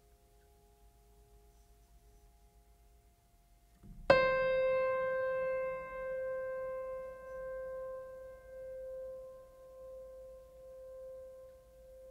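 Background music: near silence, then a single piano-like note struck about four seconds in, ringing and slowly fading in pulsing swells.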